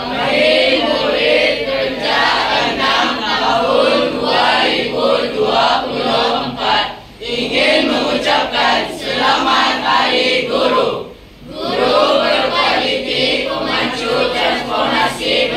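A group of schoolchildren singing together in unison, in phrases that break off briefly twice.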